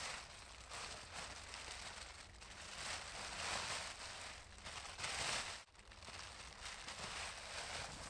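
Rustling and scraping of a burlap rucksack being handled and lifted. It is loudest about three to four seconds in and again around five seconds in, with a brief gap just before six seconds.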